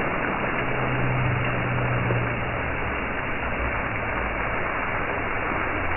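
Steady rushing hiss of a plaza fountain's many vertical water jets falling and splashing onto the paving.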